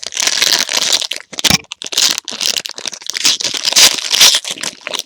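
Plastic trading-card pack wrapper crinkling and crackling loudly as it is handled, crumpled and torn.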